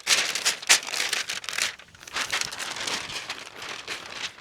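Crinkly synthetic gear material being handled and rustled, loud for the first two seconds, then softer.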